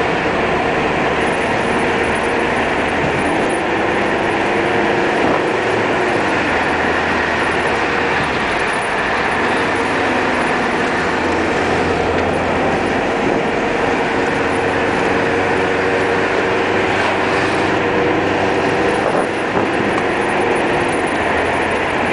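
Car being driven along a road: steady engine and tyre noise, with a faint engine hum that drifts slightly in pitch.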